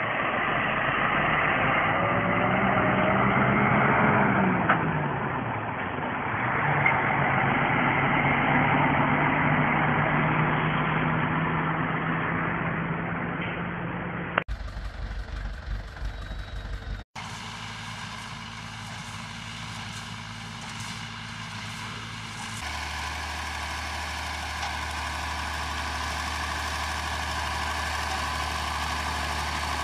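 A string of cut-together engine sounds. First a truck engine pulling a hay-laden road train, its pitch rising and falling and then holding steady. After two brief cuts, a tractor engine runs steadily.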